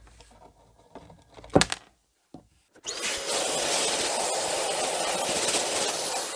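Handling noises and a sharp knock as the perforated metal back cover comes off a dusty old tube radio. About three seconds in, a cleaning tool starts with a loud, steady rush of air, used on dust and spider webs.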